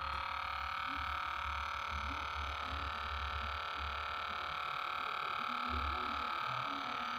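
Small DC motor of a homemade mini lathe running steadily with a constant whine and a low hum, spinning a foam fishing float.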